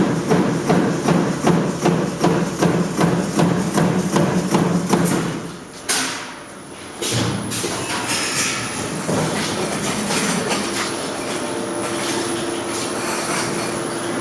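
Metal-working machinery striking in a fast, even rhythm, about two strokes a second, stopping about five seconds in; after a short lull, steady machine running noise with a low hum.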